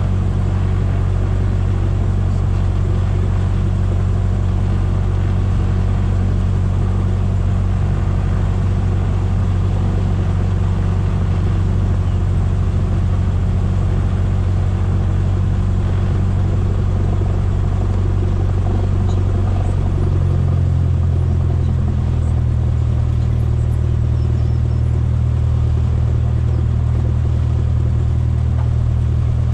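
Light single-engine airplane's piston engine and propeller running steadily at low taxi power, heard from inside the cockpit. About twenty seconds in, the engine speed steps up a little and holds there.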